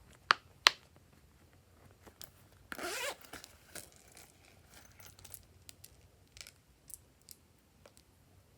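Glossy slime being worked by hand: two sharp pops in the first second, a brief squelching, tearing stretch about three seconds in, then scattered small pops and clicks.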